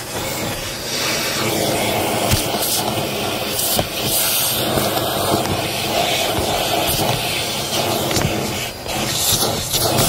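Bissell Helix vacuum running with its crevice tool on a car's carpet floor mat, a steady loud suction hiss that swells and dips as the nozzle presses on and lifts off the carpet. A few sharp clicks of debris being sucked up the hose.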